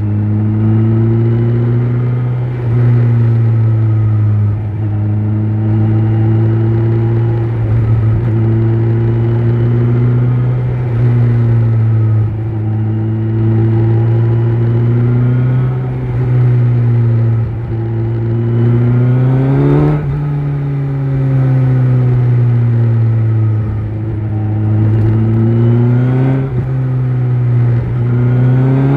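Kawasaki Z900's inline-four engine through an Akrapovic exhaust, running at steady moderate revs under way. The note climbs as the bike accelerates about two-thirds of the way in, drops sharply at an upshift, and starts climbing again near the end.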